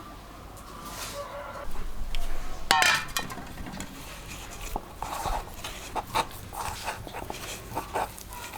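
Kitchen utensils clinking and knocking against pots and dishes, scattered irregular clicks, with a short high call, like a chicken's, about three seconds in.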